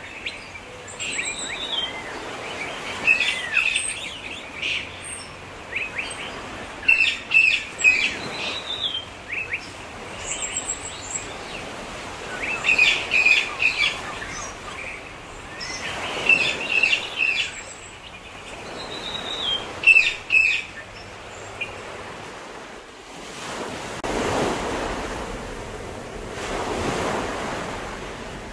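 Small birds chirping and singing in short phrases every few seconds over a soft steady hiss; about two-thirds of the way through the birds stop and ocean waves take over, washing in and falling back in slow swells.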